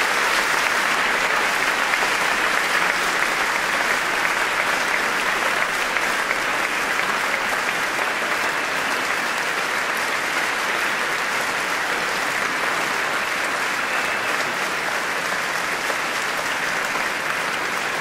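A large audience applauding, a dense steady roar of clapping that eases off slightly towards the end.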